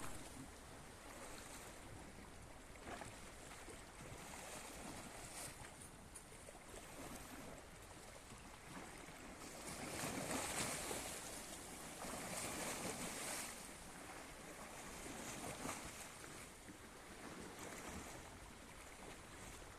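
Sea waves washing and hissing in slow surges, the loudest near the middle, with some wind on the microphone.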